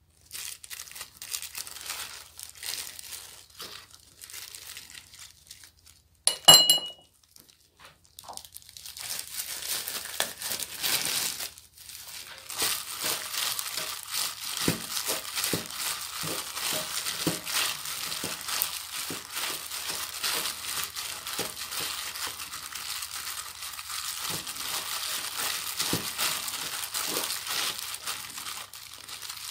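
A disposable plastic glove crinkles as a hand squeezes and tosses blanched bangpung greens with seasoning, in a regular rhythm of about two squeezes a second. A single short ringing clink sounds about six seconds in.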